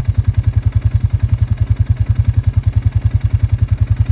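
A vehicle engine idling close by: a steady, deep, rapid putter of about ten pulses a second.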